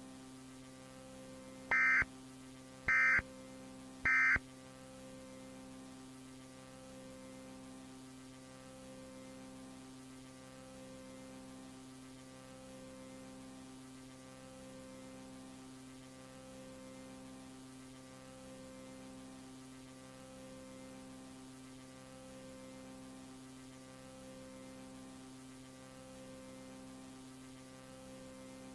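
Three short bursts of emergency alert data tones, about a second apart, the pattern that marks the end of an Emergency Alert System message. Under them and on after them, a steady electrical hum that swells and fades about every two seconds.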